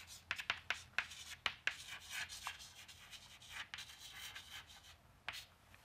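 Chalk writing on a chalkboard: a quiet run of short taps and scratches as letters are written, thick at first and thinning out, with one last tap near the end.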